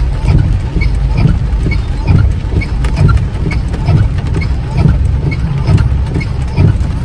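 Car driving in the rain, heard from inside: a steady low rumble of engine and tyres, with a light regular tick about twice a second.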